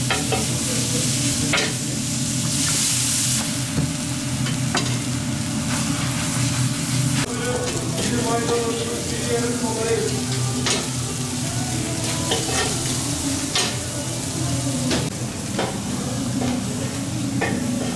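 Strips of meat sizzling on a large concave steel griddle (saç) as a metal spatula stirs and scrapes them, clacking sharply against the steel many times. A steady low hum runs underneath.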